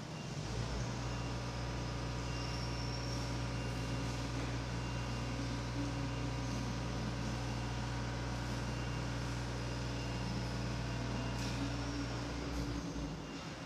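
A steady low mechanical hum with a few faint steady tones above it. It comes in about half a second in and fades out shortly before the end.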